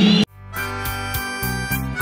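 Arena noise cuts off abruptly just after the start, and background music fades in: held chords over a steady beat of cymbal ticks, about four a second.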